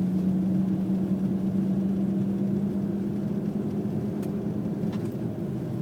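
Audi quattro's engine pulling steadily in third gear on a snowy highway, heard from inside the cabin as a steady low drone over road noise. It eases off slightly toward the end.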